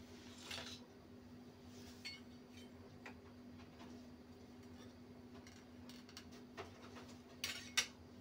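Kadhai of oil heating on a gas stove: faint scattered ticks and light crackles over a low steady hum, with two sharper clicks near the end.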